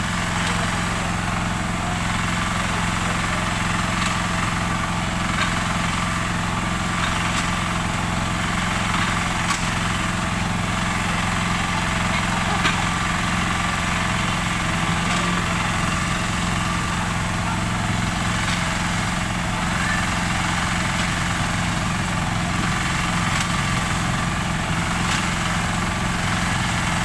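An engine running steadily at idle, a constant low hum.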